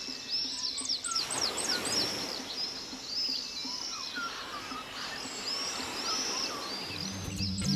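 Several birds chirping and twittering over steady outdoor background noise. Music with a beat comes in near the end.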